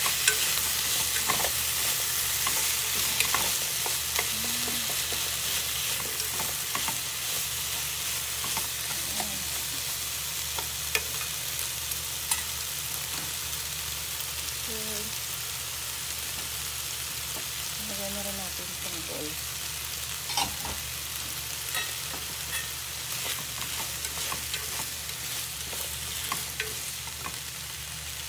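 Chicken, onion and carrot sizzling as they stir-fry in a nonstick pan, with the scrape and click of chopsticks turning the pieces. The sizzle eases slightly as it goes on.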